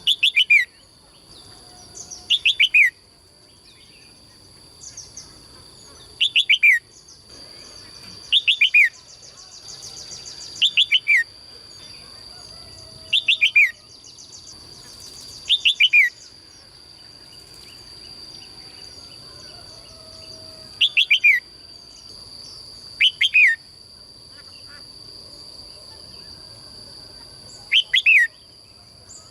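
A caged songbird calling over and over: short phrases of three or four quick notes, each falling in pitch, repeated about every two to three seconds. A steady high-pitched whine runs underneath.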